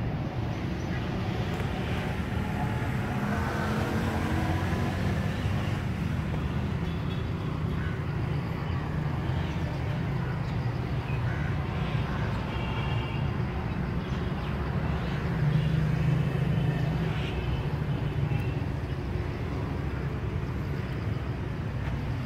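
Steady low outdoor rumble of background traffic, with a passing engine rising in pitch a few seconds in and a few short high chirps later on.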